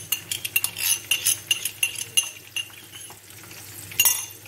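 A spoon scraping and tapping tomato paste out of a small glass cup: a quick run of clinks on the glass for about two and a half seconds, then quieter, with one sharp clink near the end.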